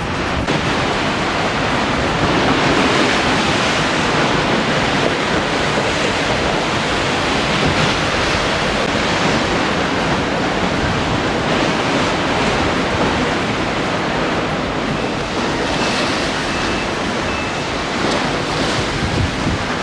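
Strong wind blowing across the microphone over the rush of a rough sea, with waves breaking against a harbour wall below: a steady, loud noise without breaks.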